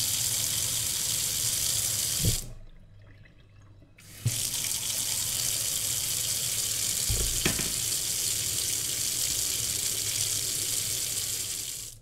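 Kitchen faucet running into a stainless steel sink, shut off about two and a half seconds in and turned back on a second and a half later. A few dull knocks sound in between.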